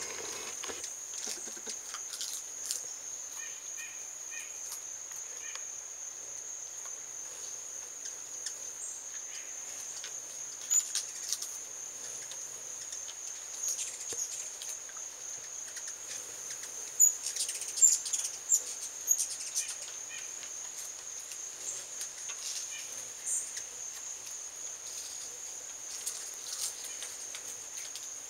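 Steady high-pitched drone of insects in the woods, with short high chirps and ticks now and then, bunched a little past halfway.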